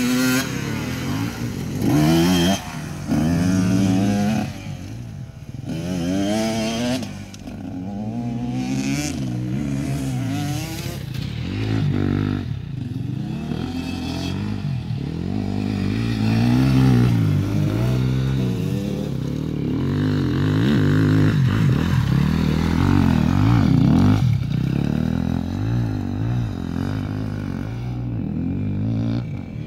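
KTM enduro motorcycle engine revving up and down over and over as the bike is ridden hard around a tight dirt course, its pitch rising and falling every second or two.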